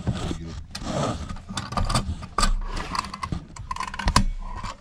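Hand-work on a fuel pump assembly: irregular clicks, rattles and scraping as its snap-on fittings are handled, with two heavier knocks, about two and a half and four seconds in.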